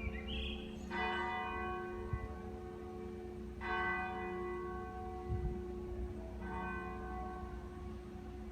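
A church bell tolling: three strokes roughly three seconds apart, each ringing on and fading into the lingering hum of the bell.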